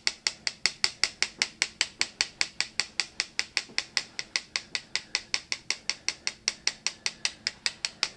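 Metal spoon lightly tapping a wire-mesh sieve, a quick steady run of about five clicks a second, sifting powdered sugar through the mesh.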